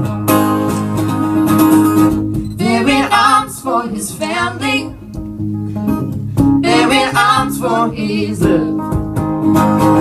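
Acoustic guitar strummed under singing with vibrato. The voices drop out briefly about five seconds in, then come back.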